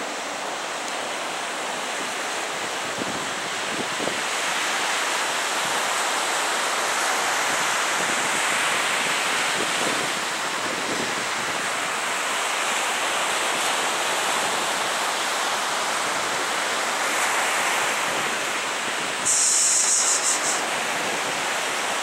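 Steady rush of ocean surf mixed with wind on the microphone, swelling and easing slightly. Near the end a brief, louder high hiss with a fast flutter cuts in for about a second and a half.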